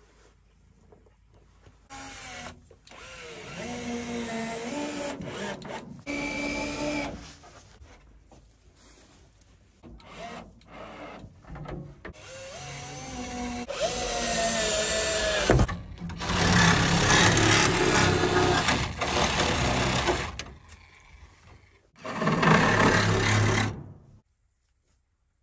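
Cordless drill driving screws through plastic milk crates into wood, in four runs of a few seconds each, its motor whine speeding up and slowing down with short pauses in between.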